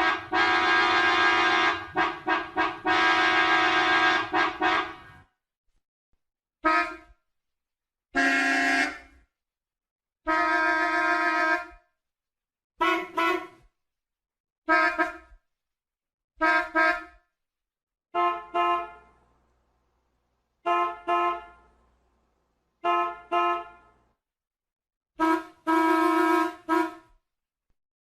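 Car horns honking. First a long blast of about five seconds with a few brief breaks, then a string of separate honks with silence between them, most of them quick double beeps, and a longer honk near the end.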